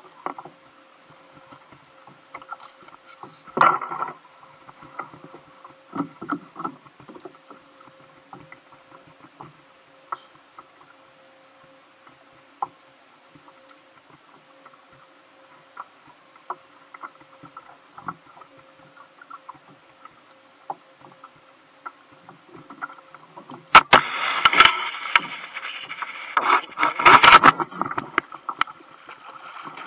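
Small clicks and knocks of fishing gear being handled aboard a plastic sit-on-top kayak, over a faint steady hum. About 24 seconds in come a few seconds of loud rustling with sharp knocks.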